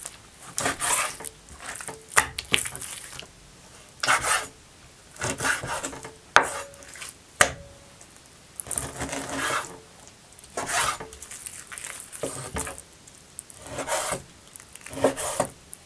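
Knife cutting raw meat into chunks on a cutting board: irregular slicing strokes, with a few sharp knocks of the blade on the board.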